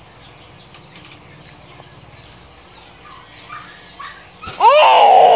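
Nine-month-old baby squealing once, loud and high-pitched, near the end, the pitch rising and then falling; before it only a faint low background.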